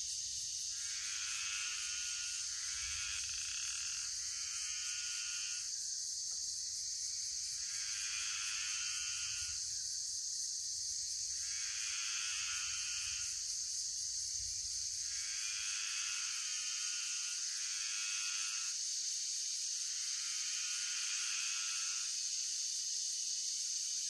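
A frog calling over and over, each call a second or two long with a few seconds between, over a steady high-pitched chorus of crickets.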